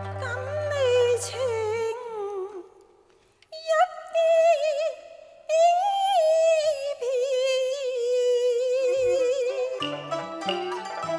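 Cantonese opera music from a traditional Chinese ensemble: a melody of long, wavering held notes. It drops away for about a second some three seconds in, then comes back on a long held note.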